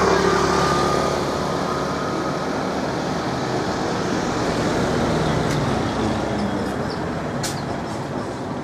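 Road traffic going by: a steady rush of vehicle noise, loudest in the first second as a vehicle passes, then holding steady.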